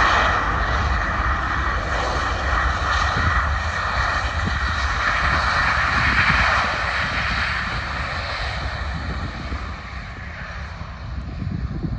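Boeing 737-800's CFM56 jet engines during its landing roll: a steady, loud rushing noise that fades over the last few seconds as the aircraft slows and moves away.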